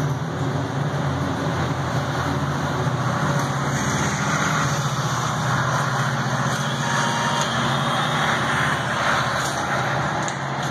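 Steady low mechanical hum and rumble of a motor running: the roll-up grille door's operator motor driving the door closed.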